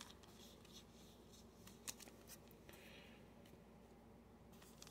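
Near silence, with faint scattered clicks and light rustles of trading cards being handled; one tick about two seconds in is a little louder.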